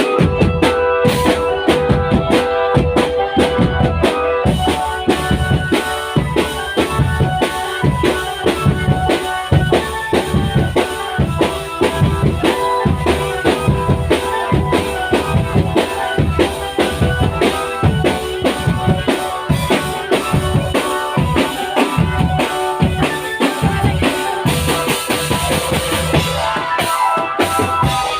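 Loud live music: drums, bass and snare, keeping a steady beat under sustained melodic tones, with a brief cymbal-like wash near the end.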